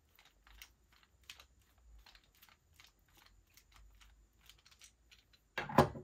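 Hand screwdriver backing small screws out of a laptop hard drive's mounting bracket: a run of faint irregular clicks, then one louder knock near the end as the screwdriver is put down on the desk.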